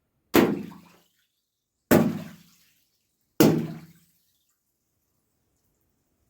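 Three water-filled balloons bursting one after another, about a second and a half apart: each is a sharp pop followed by a short splash that quickly dies away.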